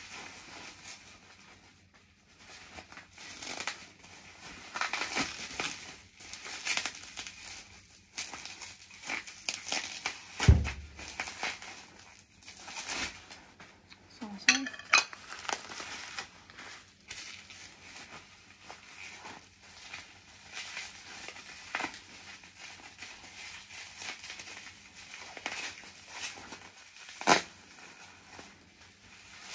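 Bubble wrap and plastic packaging crinkling and rustling as crockery is unwrapped, with light clinks of Woods Ware Beryl earthenware plates and saucers being handled and set down. A dull thump about ten seconds in and a sharp click near the end are the loudest moments.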